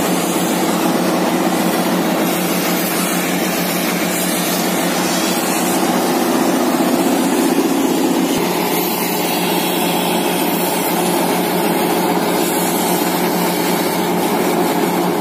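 Diesel engine of a borewell drilling compressor truck running steadily under load: a loud, continuous drone with a steady hum that shifts slightly in pitch about eight seconds in.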